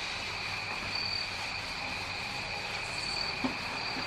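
A steady high-pitched background trill or whine holds two tones and swells briefly twice.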